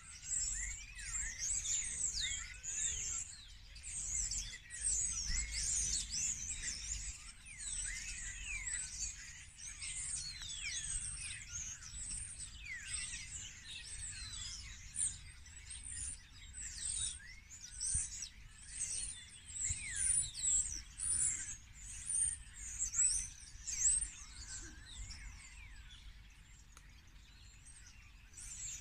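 Dense chorus of many small birds chirping and singing at once, quick overlapping high calls that thin out over the last few seconds, over a faint low rumble.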